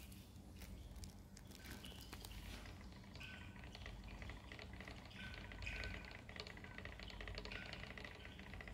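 Heated magnetic stirrer running at 700 rpm, its magnetic bead spinning in a flask of CNT, epoxy and evaporating acetone: a faint low hum with light, rapid ticking and patter.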